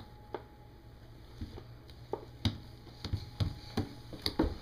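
Scattered light taps, a few at first and then coming quicker in the last couple of seconds: hands slapping a hardwood floor, over faint room noise.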